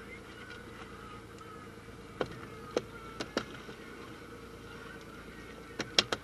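A fishing boat's engine running steadily, with several sharp knocks: a few spread out a couple of seconds in and a loud quick cluster of three near the end.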